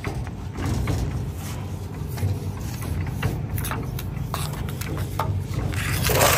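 A hand trowel scraping and tapping along the groove of a concrete wall-panel mould: a few short, sharp scrapes and clicks in the second half and a louder scrape near the end, over a steady low machine rumble.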